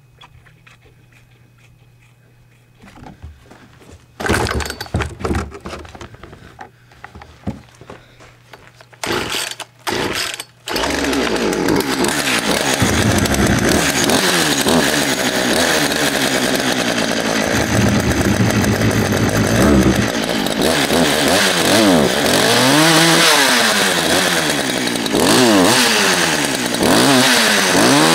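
Poulan 16-inch two-stroke chainsaw cold-started on choke after sitting all winter: a few rope pulls, and it catches about ten seconds in and keeps running. In the later part it is revved up and down again and again.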